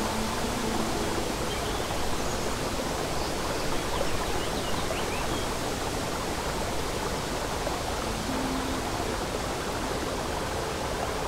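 Babbling brook running steadily, with faint sustained notes of soft music underneath and a few brief high bird chirps about four seconds in.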